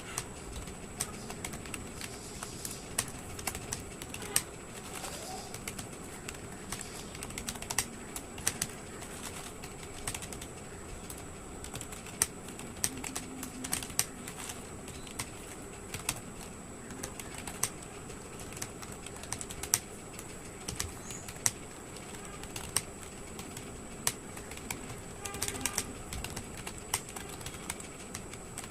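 Computer keyboard typing: irregular key clicks, several a second, with short pauses.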